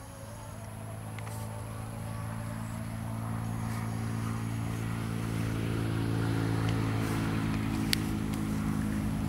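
A motor engine running at a steady pitch, growing gradually louder as it comes nearer. There is a single sharp click near the end.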